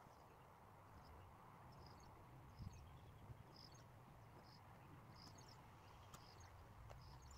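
Near silence: faint outdoor ambience with a soft, high chirp repeated at a steady pace, roughly once or twice a second.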